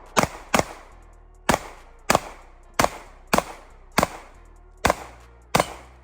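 A gun fired nine times in quick succession, a shot roughly every half second to second, each crack trailing off in a short echo.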